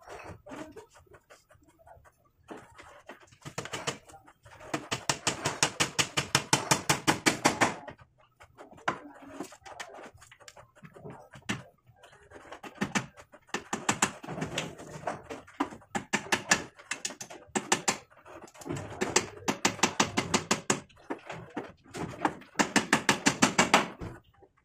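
Claw hammer driving nails into a wooden frame, in five quick runs of blows at several strikes a second, with short pauses between runs.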